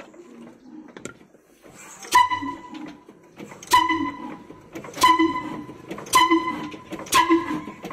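35 HP single-cylinder horizontal diesel engine firing into life: starting about two seconds in, loud, evenly spaced exhaust beats, each with a short ringing tone, coming closer together as the engine gathers speed.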